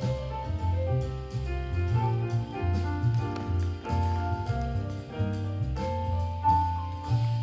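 Jazz music playing in the background, with notes changing continuously.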